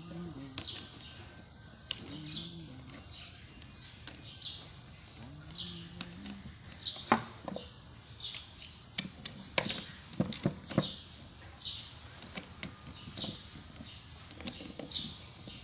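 A bird chirping over and over, short high notes about once a second, with a run of sharp clicks or knocks in the middle and a few brief low voice-like sounds.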